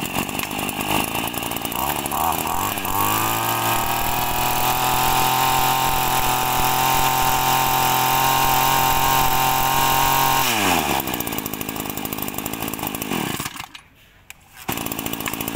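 Stihl FS26C two-stroke brush cutter engine starting and idling, then revved up about three seconds in and held high for about seven seconds before dropping back to idle. Near the end it cuts out for about a second, then runs again.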